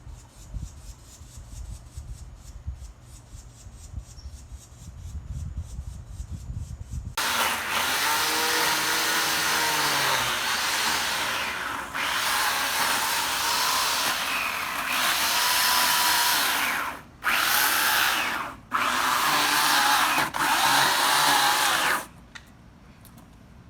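A power tool runs loudly for about fifteen seconds, its pitch sweeping as it spins up at the start, with a few brief stops before it cuts off. For the first several seconds there is only a low rumble.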